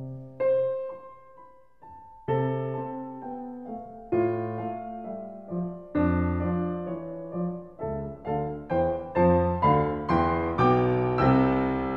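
Background solo piano music: chords struck and left to ring away, slow and spaced at first, then coming faster and louder in the second half.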